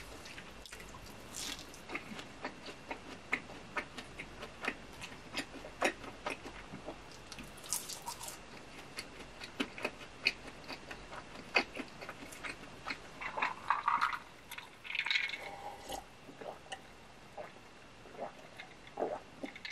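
Chewing a fried mozzarella cheese stick: irregular wet mouth clicks and smacks, several a second. The dedicated recorder is switched off, so the sound is thin and distant, as heard through the camera's own microphone, with swallows of iced cola near the end.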